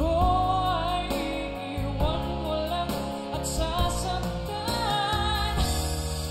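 A live band plays a slow pop ballad, with a wavering lead melody over steady sustained bass notes.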